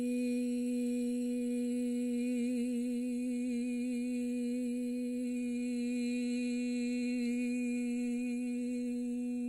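A woman's voice holding one long, unbroken 'eee' vowel at a steady pitch on a single breath, as a lung-capacity breathing exercise. The note wavers slightly a couple of times.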